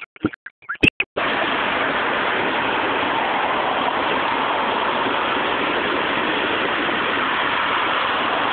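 Freight train rolling past: a steady rushing noise of wheels on rail, starting abruptly about a second in and holding an even level, with no horn or engine note standing out.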